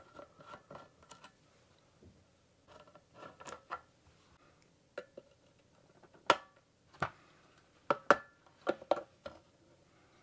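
Small metal clicks, taps and scrapes from a Bosch Digifant ECU's metal case being taken apart by hand: a screwdriver working out its screws, then a run of sharp clicks in the second half as the case's clips are pressed and the cover is opened.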